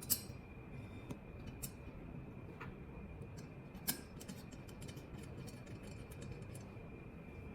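Small metal and plastic door-handle fittings being handled and set down: a few sharp clicks, the loudest about four seconds in, then a run of small ticks.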